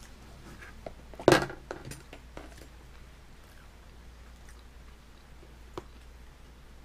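Light taps and clicks of food and hands on a plastic high-chair tray, with one much louder knock about a second in and a last click near the end as pieces are set down.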